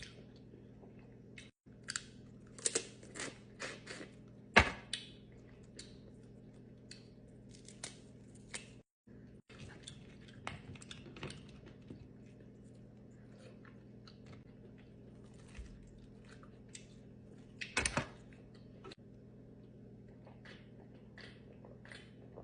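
Close-up mukbang eating sounds: chewing and crunching of seafood, with scattered sharp cracks and smacks, the loudest about four and a half seconds in and again near eighteen seconds. A faint steady hum runs underneath.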